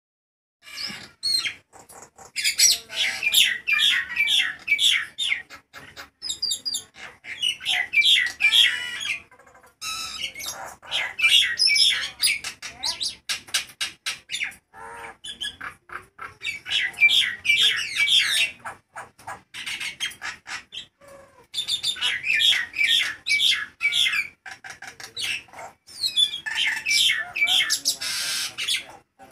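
Common myna (jalak nias) singing loudly: a fast, varied run of chattering, squawking and whistled notes, in bursts of several seconds separated by brief pauses.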